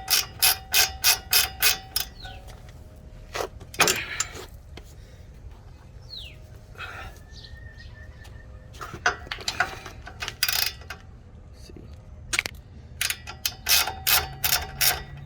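Hand ratchet wrench clicking in quick, regular strokes, about four a second, as a bolt is backed out. The run stops about two seconds in, and a second run of strokes comes near the end, with a few scattered clinks of tools and parts between.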